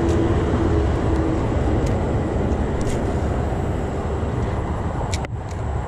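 Steady low rumble of wind on the microphone while a small spinning reel is cranked, with a few faint clicks.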